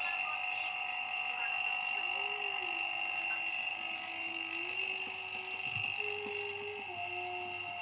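Refrigeration vacuum pump running with a steady high whine, evacuating a freezer's refrigerant circuit before it is charged with R600a. From about two seconds in, a lower tone shifts up and down in pitch in small steps.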